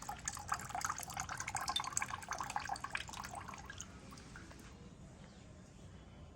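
Motorcycle engine coolant trickling and splattering in a rapid, irregular patter that fades away after about four seconds.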